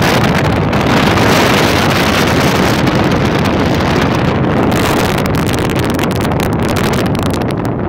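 Loud, steady rush of wind buffeting the microphone through the open window of a moving car, with the car's road noise beneath it.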